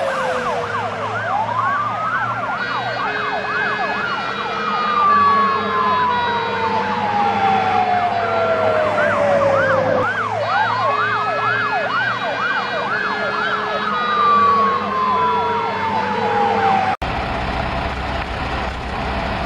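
Several emergency-vehicle sirens sound together: a fast warbling yelp, a two-tone horn alternating between a low and a high note, and a siren that rises and then slowly falls in pitch, twice. About 17 seconds in they cut off abruptly into a low, steady engine rumble.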